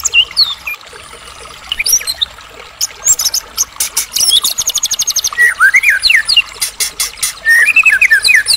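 White-rumped shama (murai batu) in full, continuous 'gacor' song: a varied run of clear whistled glides, a fast even rattling trill, and bursts of sharp rapid ticks.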